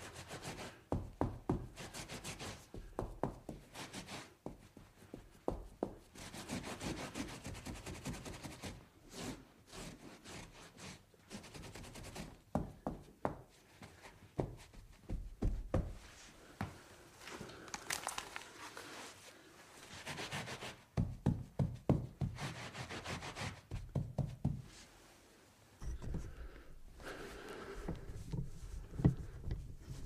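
Someone cleaning up a spill: irregular rubbing and wiping with scattered knocks and clunks of things being handled, with a brief lull near the end.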